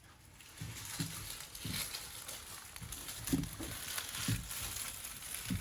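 Onions being taken out of a mesh onion bag: the bag and the papery onion skins crinkle and rustle irregularly, with several soft low knocks as the onions are handled and set down.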